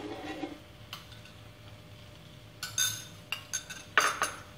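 A metal spoon and a ceramic bowl clinking and knocking as kitchen utensils are handled and set down, in a few short clusters of quick clinks, the loudest near the end.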